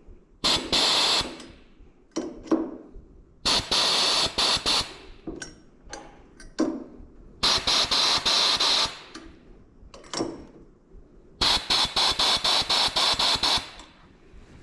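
Compressed-air blow gun hissing in four long bursts, with shorter puffs between them. The last burst stutters on and off rapidly.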